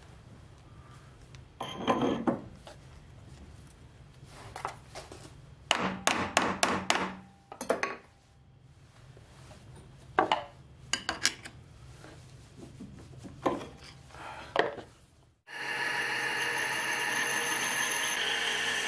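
Metal clinks and knocks as a steel three-jaw chuck is handled and fitted against the flange of a homemade lathe's spindle. About 15 seconds in, this gives way to the lathe running steadily with a steady whine, while the turning tool touches the spinning flange to mark a radius.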